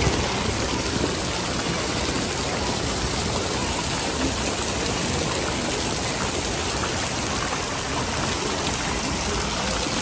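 Splash-pad water jets spraying and splashing onto the wet pad, a steady rushing of water.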